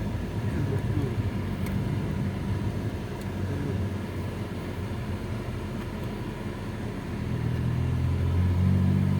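Car engine and road noise heard while riding: a steady low rumble that grows louder near the end.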